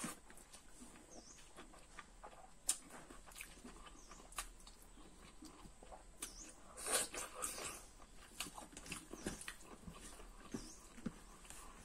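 Close-up eating sounds: chewing and wet lip-smacking as a mouthful of rice and chicken curry is eaten by hand. Irregular soft clicks and smacks, the loudest about a third of the way in and again just past halfway.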